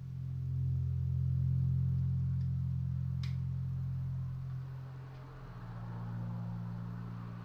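Electric guitar played through a small combo amplifier, slow and improvised: a low note rings out and fades after about four and a half seconds, then a second low note comes in about five seconds in and sustains.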